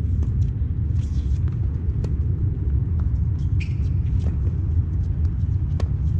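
Tennis ball being struck by rackets and bouncing in a rally on a hard court: sharp pops every second or two, over a loud steady low rumble.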